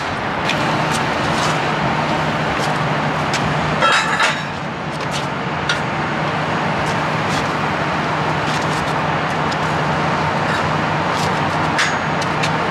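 A motor vehicle running steadily with a low, even hum over road and traffic noise, with a brief burst of rattling clicks about four seconds in.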